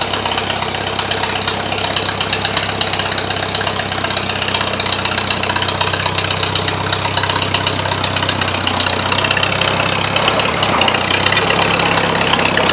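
Farmall H tractor's four-cylinder engine running steadily as the tractor pulls slowly forward. Its note shifts briefly about nine seconds in.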